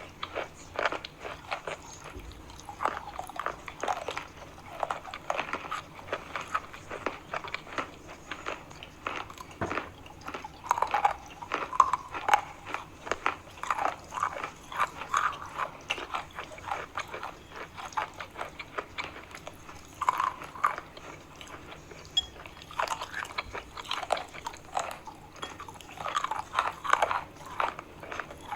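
A person biting and chewing chalk close to the microphone: a dense, irregular run of crunches.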